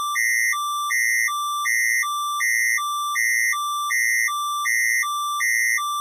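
Synthesized emergency-alert attention tone: two pitches alternate steadily, high then low, each held for about a third of a second, a little over one high-low cycle per second. The higher tone is slightly louder.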